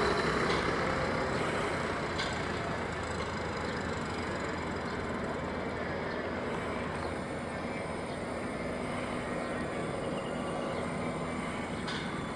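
Distant large twin-engine military helicopter flying away, a rumbling rotor-and-engine noise that fades over the first few seconds and then holds steady.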